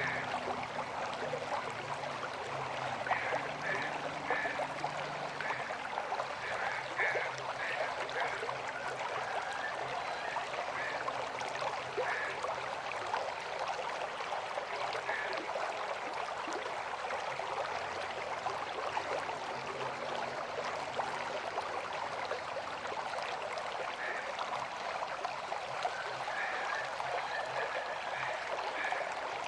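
River water flowing, a steady rushing and gurgling with no let-up.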